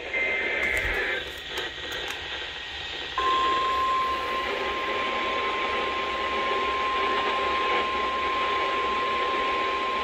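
Weather radio alert over static: a short data burst and a few crackles, then about three seconds in the steady single-pitch 1050 Hz warning alarm tone starts abruptly and holds. The tone signals that a warning message, here a tornado warning, is about to be read.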